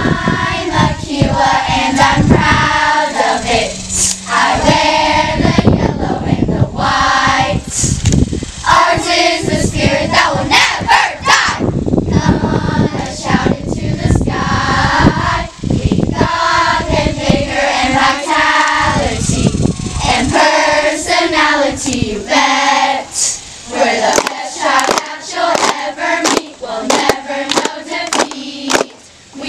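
A group of young girls singing a camp song together in unison, with rhythmic hand clapping joining in during the last third.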